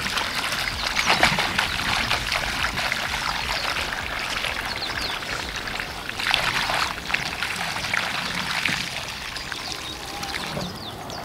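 Water pouring steadily from a 20-litre plastic container onto a heap of dry sand-and-cement mix, splashing into the pool that gathers on it: the water being added to the mix for cement blocks.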